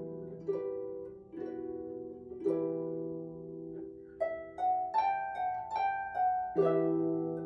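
Solo harp playing: slow plucked chords over a low bass note, left to ring, then from about four seconds in a quicker line of single higher notes, ending on a full ringing chord.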